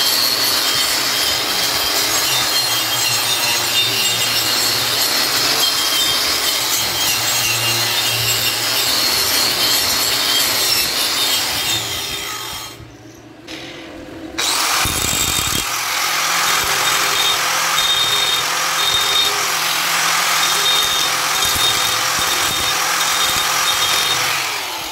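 Stick-welding arc crackling and sizzling steadily as an electrode burns along an overhead weld joint. The arc breaks off about halfway through, is struck again a second or two later and runs on until near the end.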